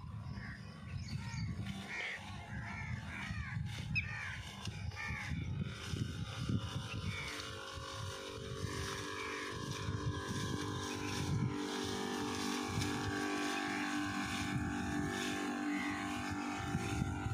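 Birds calling in short repeated chirps over gusty wind on the microphone; from about six seconds in, a steady mechanical hum joins and holds to the end.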